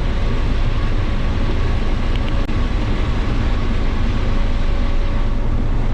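Combine harvester running steadily while harvesting corn: a constant low engine and machinery drone with a faint steady whine over it.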